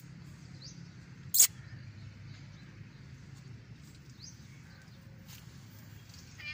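Outdoor background of a steady low hum with a few faint, short bird chirps, broken by a single sharp knock about a second and a half in.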